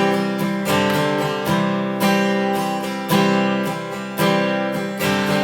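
Acoustic guitar strumming chords, each strum ringing and fading before the next, about one strum a second.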